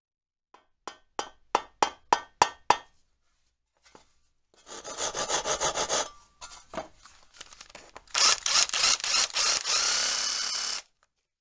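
A run of about eight sharp knocks in quick succession, getting louder, then saw strokes through wood in two spells of rapid rasping, the second louder and longer.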